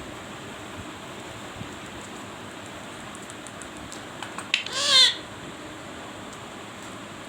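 Pet parrot giving one short, loud call about five seconds in, its pitch rising and falling, with a few faint clicks just before it over a steady background hiss.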